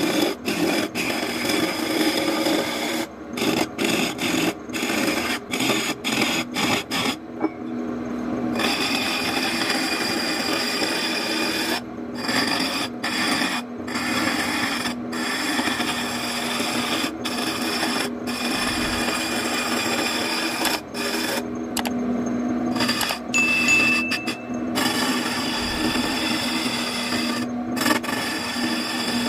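Wood lathe turning a wooden cylinder while a hand-held turning chisel cuts along it: a continuous scraping rasp over a steady hum, broken many times by brief gaps as the cut stops and starts.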